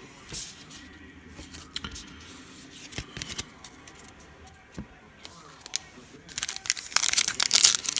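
A few light clicks and taps of trading cards being handled. About six seconds in, a foil-wrapped NBA Hoops card pack starts crinkling and crackling as it is torn open; this is the loudest sound.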